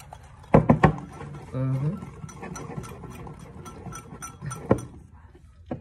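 A small whisk stirring milk in a glass mug, knocking against the glass a few times and then clinking against it in a quick, even run of light ticks, about three or four a second, with one louder knock near the end.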